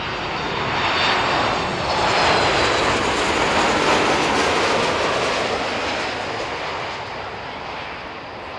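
Jet airliner flying low overhead on its landing approach: the engine noise swells, peaks a few seconds in and fades away, with a faint high turbine whine over the rush.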